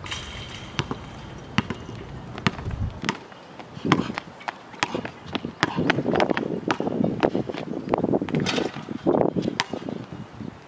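Basketball bouncing on a hard outdoor court: sharp single bounces at irregular intervals, about one a second, with a rougher, muffled noise under them in the second half.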